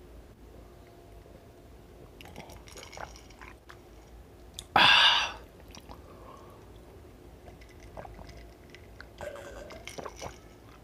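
A man drinking water from a glass mug: quiet gulps, swallows and small mouth clicks, with one short, loud breathy burst about five seconds in.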